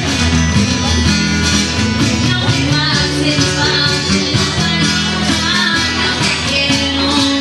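A girl singing into a microphone, accompanied by two strummed acoustic guitars.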